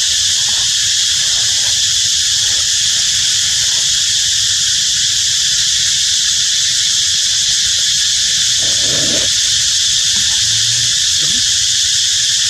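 Steady, loud insect chorus droning without a break, with a brief lower-pitched call or scuffle about nine seconds in.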